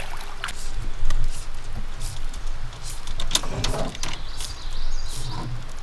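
Fly line being stripped in by hand through the rod guides in short, irregular pulls, over a low rumble.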